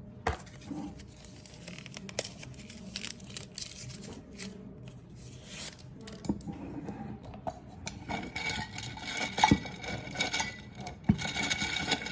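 Close handling noises: packaging or paper crinkling and tearing, with irregular small clicks and taps that grow busier in the last few seconds.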